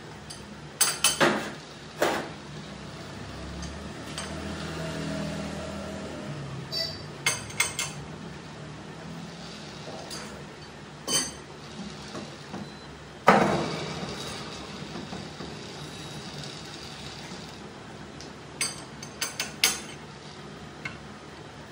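Scattered metal clinks and knocks from a chuck key and steel tools working the jaws of a four-jaw lathe chuck as a large steel workpiece is set and tightened, with the spindle stopped. One knock about halfway through is the loudest, and a quick run of clinks comes near the end.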